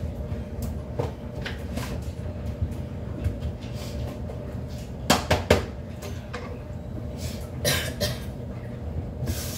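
Dishes and a glass bowl knocking and clattering at a kitchen sink during washing up: scattered light knocks, with two loud sharp clacks about five seconds in and another clatter near eight seconds.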